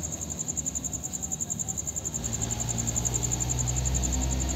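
Insects chirping steadily in a fast-pulsing high-pitched trill. A low hum comes in about two seconds in.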